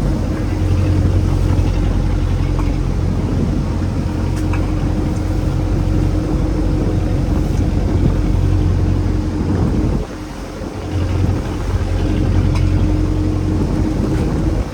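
Small fishing boat's engine running steadily at sea, with wind and water noise over it; the low engine drone drops away briefly about ten seconds in, then comes back.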